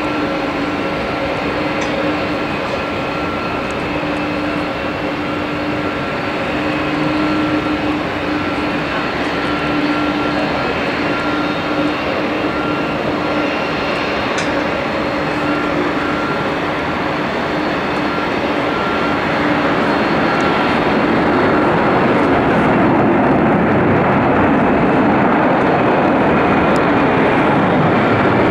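Boeing 747-400's four jet engines at takeoff power as the airliner rolls, lifts off and climbs out. It starts as a steady engine noise with a held whine, then grows louder and fuller from about two-thirds of the way in as the whine fades.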